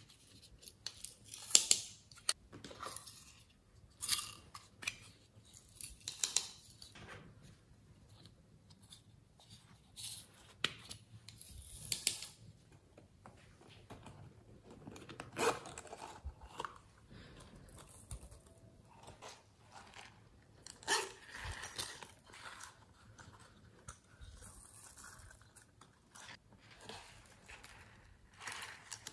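Hands handling small plastic toy cases and squishy toys close to the microphone: irregular clicks, taps and rustles a second or two apart, some sharper than others.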